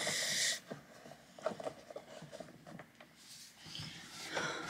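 Shoelaces rasping through the eyelets of a leather tap shoe as they are pulled loose, followed by soft rustling and a few light knocks as the shoes are handled and set on the wooden floor.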